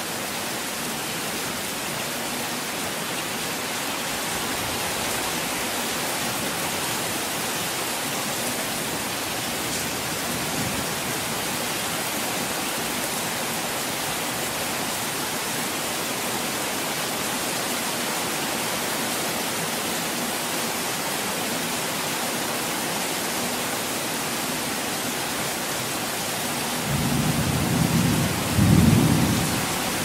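Heavy rain falling steadily. Near the end a low rumble of thunder swells for about three seconds.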